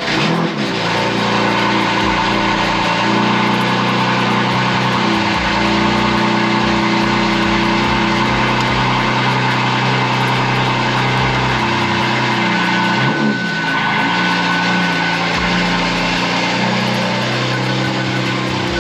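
BMW F80 M3's S55 twin-turbo inline-six cold-starting on its stock engine tune and settling into a steady fast idle, heard from inside the cabin. The exhaust is still modified: M Performance exhaust with the secondary cats deleted and aftermarket downpipes.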